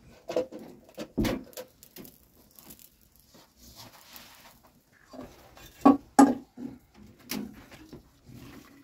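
Scattered light knocks and rustles of household items and bedding being handled, with two louder short sounds about six seconds in.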